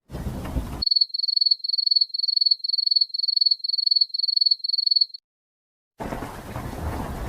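Cricket chirping, a steady high-pitched chirp repeated about twice a second for roughly four seconds, the familiar 'awkward silence' crickets effect. Near the end a rain-and-thunder effect begins.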